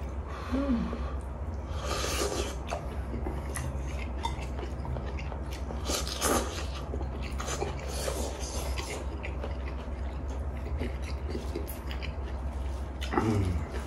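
People eating fresh noodles and chicken with chopsticks: noodles slurped a few times, around two, six and eight seconds in, between wet chewing and the small clicks of chopsticks on dishes.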